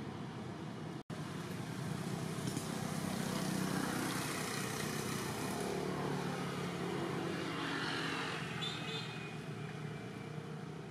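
A motor vehicle running in the background, growing louder and then fading as it passes. The sound drops out for an instant about a second in.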